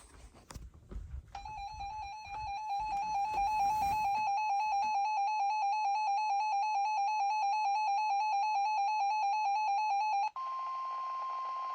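Weather-alert tones: after a few soft knocks, a loud rapidly pulsing alarm tone sounds for about nine seconds, then cuts off sharply and gives way to the steady single 1050 Hz attention tone of NOAA Weather Radio, which signals an incoming warning broadcast.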